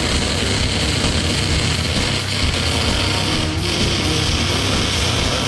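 Rock background music with electric guitar and a steady bass.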